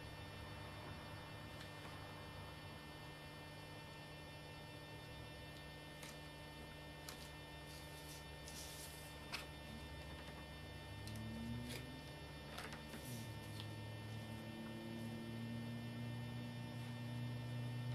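Steady electrical mains hum with a thin high whine, growing a little louder in the second half. Over it come a few faint taps and a short paper rustle as photo prints are laid down on cardstock.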